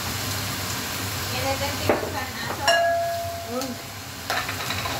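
Vegetables sizzling in a wok as they are stir-fried with a spatula, with three sharp clanks of the spatula against the wok; the middle one rings on for about a second.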